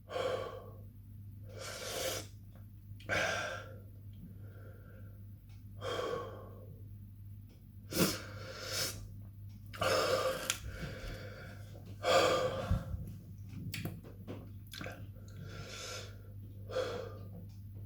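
A man breathing hard, with short sharp gasps about every one to two seconds, as he reacts to the burn of an extremely hot chilli.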